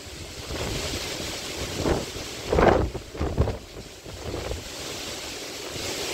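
Gusty storm wind rushing through leafy trees, with loud gusts buffeting the microphone about two and three seconds in.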